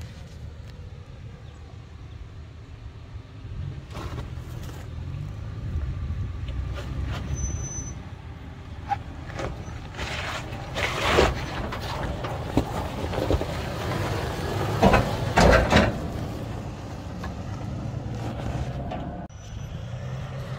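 Off-road 4x4 vehicle's engine running at low speed on a trail, with louder bursts of noise twice, about ten and fifteen seconds in.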